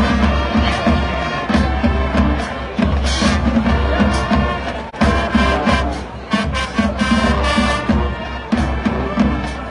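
Music with a steady, heavy bass beat, with a brief drop about five seconds in.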